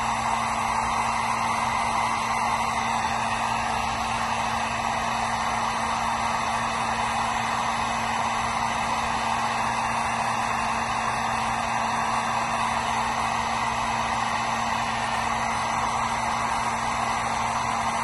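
Electric heat gun running steadily, its fan blowing hot air with a constant low hum under the rush of air, shrinking heat-shrink tubing over a bullet connector on a wire.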